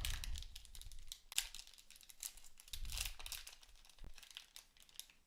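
Plastic trading-card pack wrapper being torn open and handled, giving irregular crinkling and tearing, with a few soft low knocks from handling.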